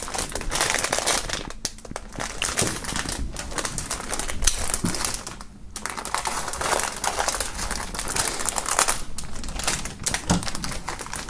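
Thin plastic foil wrapping crinkling and rustling as it is handled, slit open and pulled off, with short pauses about one and a half and five and a half seconds in.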